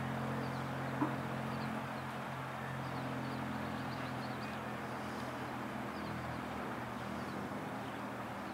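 Faint, scattered high peeps of mallard ducklings over a steady low background hum and rumble, with a single short click about a second in.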